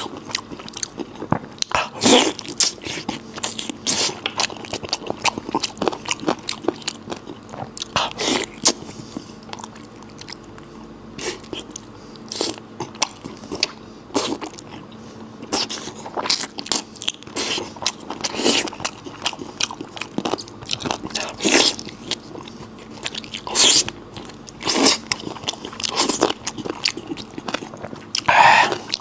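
Close-miked chewing and biting of spicy goat belly and beef intestine: wet mouth clicks and squishy bites, with a sharper crunch or smack every second or two.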